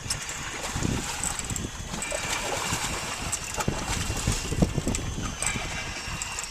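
Wind buffeting the microphone over water lapping and splashing against a small boat's hull, with scattered light clicks and knocks.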